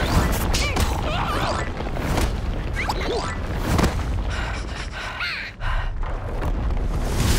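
Cartoon sound effects: short squeaky yelps and gasps from the two larva characters over a continuous low rumble. About five and a half seconds in, the sound briefly drops away, then a deeper rumble returns as a huge wall stands in a cloud of dust.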